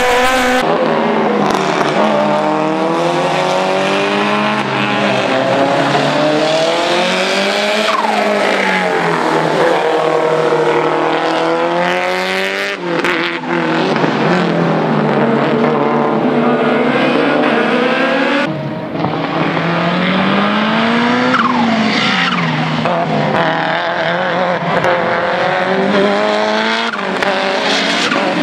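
Race-prepared touring cars, an Opel Astra and then a Lancia Delta Integrale, driven hard around a circuit: engines rev up and drop back through gear changes in repeated rising and falling sweeps, with tyres squealing at times. The sound changes abruptly twice, about halfway through and again about two thirds of the way in.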